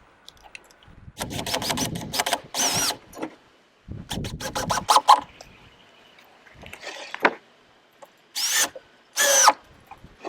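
Power drill driving screws into the wooden braces of a nest box, running in several short bursts with a whine that slides in pitch as each screw goes in.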